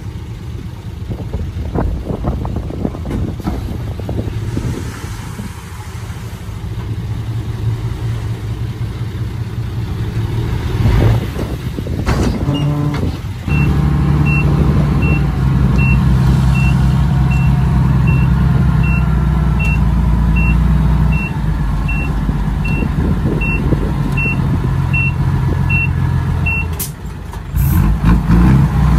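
Heavy diesel earthmoving machinery running. About halfway through the engine gets louder and a backup alarm beeps about once a second for some fourteen seconds as the machine reverses.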